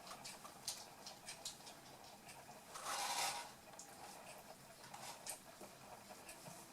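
Toy poodle puppies at play: light pattering and scattered small clicks of their paws and claws, with a louder, noisy scuffle about three seconds in.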